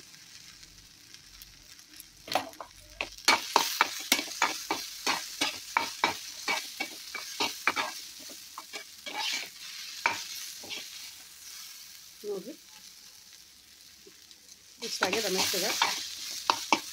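A utensil scraping and clicking against a pan while stirring a thick onion, tomato and cashew masala frying in oil, with a light sizzle underneath; the masala is at the stage where the tomatoes have gone soft. The stirring starts about two seconds in as a quick run of scrapes for about ten seconds, eases off, and picks up again louder near the end.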